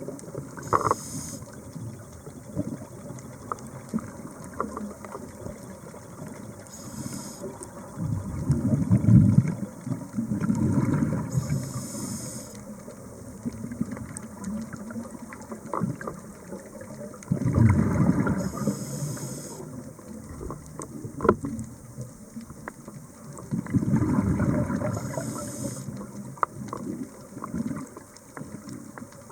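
Scuba diver breathing through a regulator underwater: a short hiss on each inhale, then a low bubbling rumble on each exhale, repeating about every six seconds, with a few scattered clicks.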